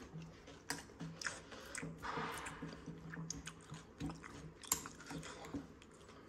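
Eating sounds: chewing, with a steel spoon clicking and scraping against a ceramic bowl as it stirs laccha soaked in milk.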